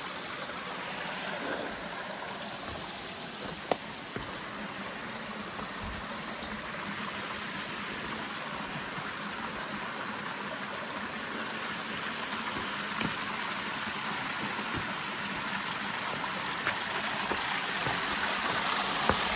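Creek water rushing over rocks and into pools: a steady rush that grows a little louder near the end. A sharp tap comes about four seconds in.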